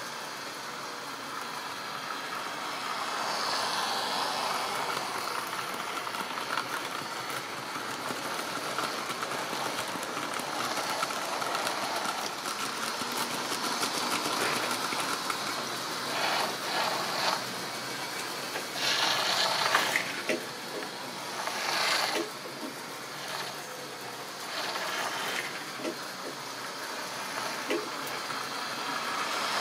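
Model railway train running on the layout: the small electric motor's steady hum with the wheels of a rake of tank wagons clicking and rattling over the track joints as they pass close by. Several louder rattling bursts come in the second half.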